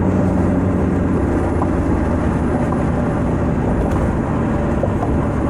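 A 2000 Ford Crown Victoria's 4.6-litre V8 running through an exhaust with no catalytic converters or mufflers, heard inside the car while driving with the windows partly down. A steady low drone mixes with road and wind noise, and the engine's hum sinks into the road noise about two seconds in.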